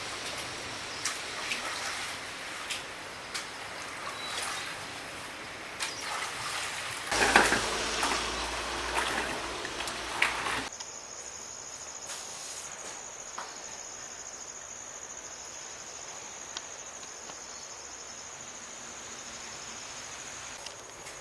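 Water trickling and dripping, with scattered clicks and knocks, swelling louder for a few seconds. About halfway through it cuts suddenly to a quieter background, where crickets keep up one steady high-pitched trill.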